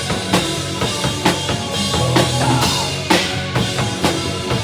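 Live rock band playing an instrumental passage, with a drum kit's bass drum and snare keeping a steady beat under sustained low notes.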